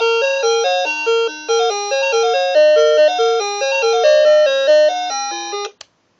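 Musical alarm clock's electronic alarm melody: a simple chime-like tune of stepped beeping notes that cuts off abruptly a little before the end, followed by a single short click.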